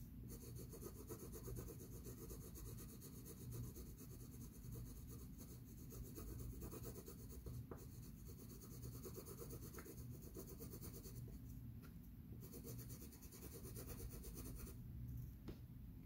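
Faint pencil scratching on paper in quick, repeated strokes, pausing briefly about eleven seconds in, resuming, and stopping a little over a second before the end.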